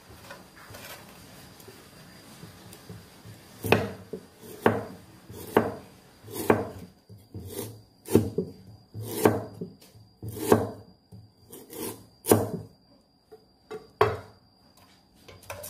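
Heavy cleaver chopping galangal on a thick wooden chopping block: about ten separate chops, roughly one a second, starting about four seconds in.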